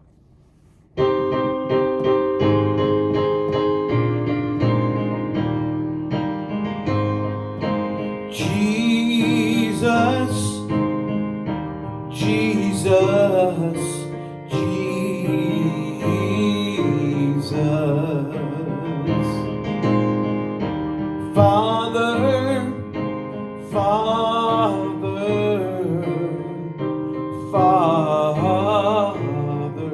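Keyboard piano playing the slow intro of a gospel worship song, starting about a second in, with wordless sung phrases with vibrato coming in over the chords.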